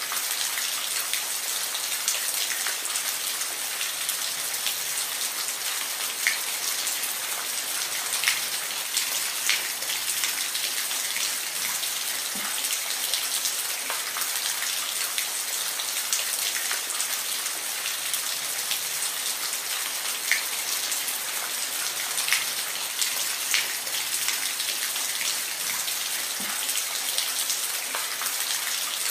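Steady rain falling, an even hiss with individual drops ticking close by now and then.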